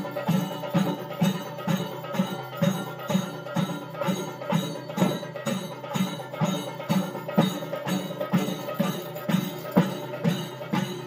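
Traditional temple festival percussion: a drum beaten in a steady rhythm about twice a second, with ringing metallic strokes and a held tone over it.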